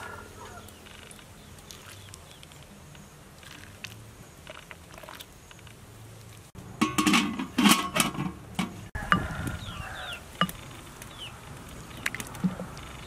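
Wooden spoon clinking and scraping against a glazed earthenware bowl as a fish paste sauce is stirred, with a burst of sharp knocks about halfway through over a faint steady background. A few short, high chirps come near the end.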